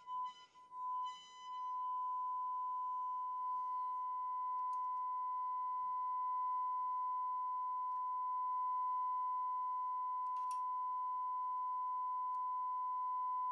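Braun SK25 tube radio's loudspeaker sounding a steady, high-pitched test tone from an FM test signal. The tone breaks up for about the first second and a half, then holds steady as the set is peaked on the signal during alignment. A faint click comes about ten seconds in.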